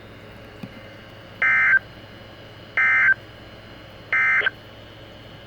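Emergency Alert System end-of-message signal on NOAA Weather Radio: three short, identical bursts of digital SAME data warble, a little over a second apart, over faint radio hiss. The three bursts mark the end of the alert.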